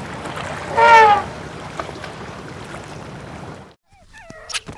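An animal's call: one loud, short, pitched cry about a second in, over steady wind-like outdoor noise. The sound then cuts out abruptly, and after a moment short, rising and falling chirping calls and a sharp click follow near the end.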